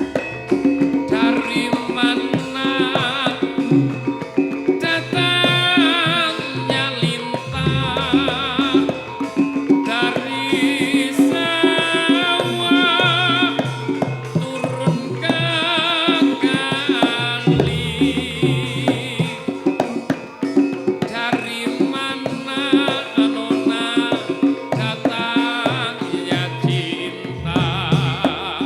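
Javanese gamelan music for a masked dance: hand-drum (kendang) strokes over metallophone parts, with a high wavering melody line coming in and out.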